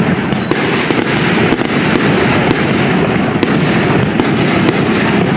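Aerial fireworks bursting one after another, a loud, dense run of overlapping bangs and crackle.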